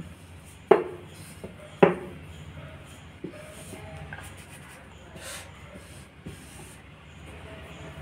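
Rolling pin working a piece of mathri dough on an oiled plate: a soft rubbing and rolling with two sharp knocks in the first two seconds and a few lighter taps later.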